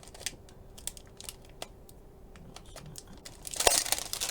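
Packaging being handled: scattered light clicks and taps, then a louder burst of crinkling about three and a half seconds in.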